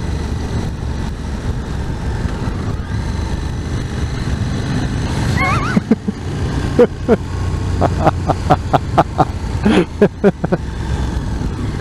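Motorcycle engine running with wind and road noise inside the rider's helmet while riding along, a steady low rumble. In the second half it is broken by short, clipped bursts.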